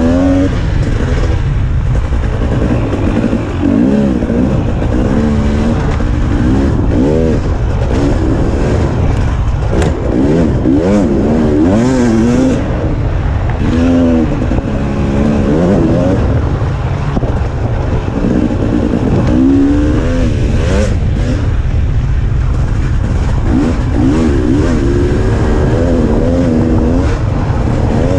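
KTM 300 XC-W TPI two-stroke single-cylinder dirt bike engine under way, its revs climbing and dropping over and over as the throttle is worked, over a constant low rumble.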